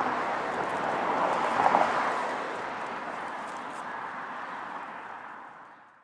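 Road traffic noise: a car going by on the street, loudest just under two seconds in, then dying away and fading out at the end.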